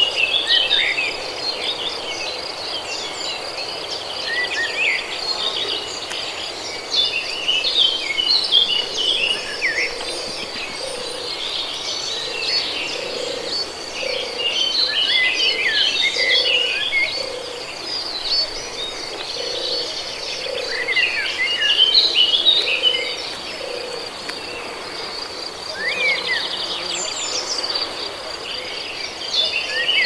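Forest ambience of many small birds chirping and twittering over a steady high insect trill. Soft low calls repeat about once a second through the middle.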